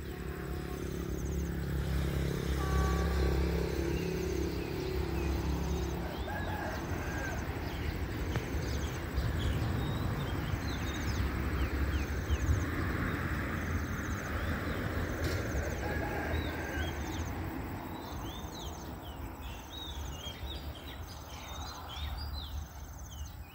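Birds chirping and calling, more busily in the second half, with a short high note repeating about once a second over a steady low rumble.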